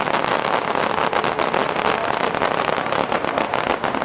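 Fireworks crackling: a dense, rapid run of sharp pops and cracks.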